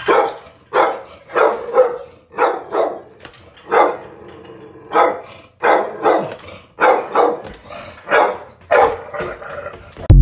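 A pit bull–type dog barking repeatedly, one to two barks a second and often in quick pairs. At the very end a loud electronic jingle cuts in.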